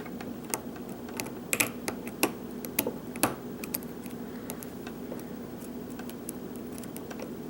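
Lock pick working the pins of a Euro cylinder lock under a tension wrench: irregular small clicks and ticks, busiest between about one and a half and three and a half seconds in.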